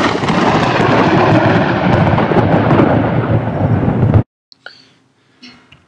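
Thunderstorm: a loud, continuous rumble of thunder with rain that cuts off abruptly about four seconds in, followed by a few faint knocks.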